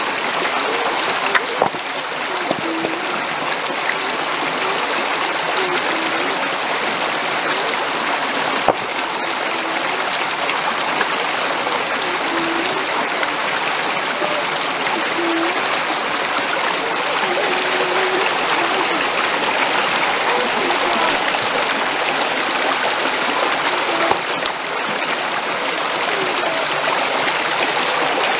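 River water flowing steadily, an even rushing of a stream.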